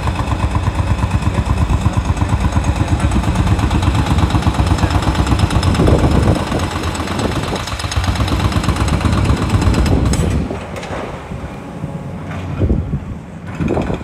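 Heavy diesel construction machinery running close by, with a rapid, even pulsing thud; it drops away about ten seconds in, leaving a fainter mechanical sound.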